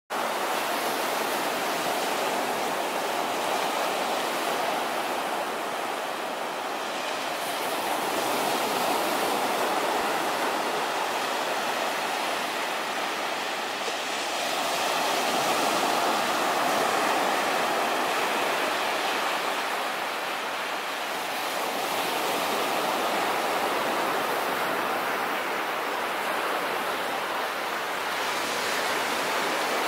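Small sea waves breaking and washing up a sandy beach: a steady rushing surf that swells and eases every six or seven seconds.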